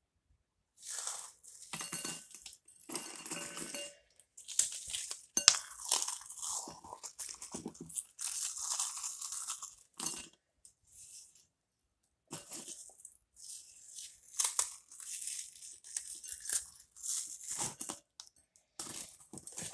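Ritz crackers being crushed by hand into a bowl: irregular bursts of crunching and crumbling, with a short pause about ten seconds in.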